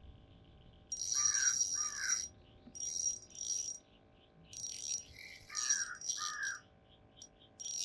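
Repeated whirring bursts, each about a second long, from a small ultralight spinning reel being cranked as a little channel catfish is reeled in on light line. Between the bursts there are short pauses.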